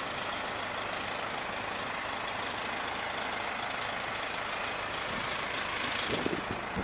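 Steady rushing noise of blizzard wind and snow, with city buses' engines idling in the distance. A few low, uneven rumbles come in near the end.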